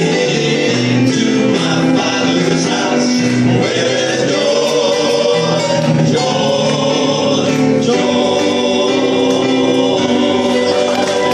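Southern gospel male quartet singing in four-part harmony (lead, tenor, baritone, bass) over electronic keyboard accompaniment, with long held chords moving from note to note.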